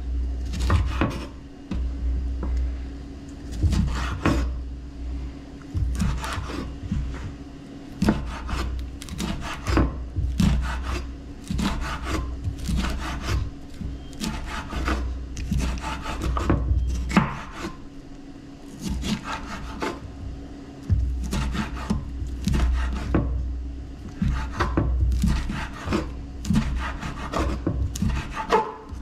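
Chef's knife slicing a yellow bell pepper into strips on a wooden cutting board: a run of short, crisp cuts with the blade tapping the board, about one or two a second.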